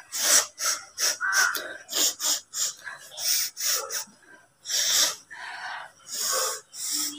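A person with a head cold repeatedly blowing and snorting mucus out of a congested nose, in a run of short, forceful nasal blasts with a few longer ones.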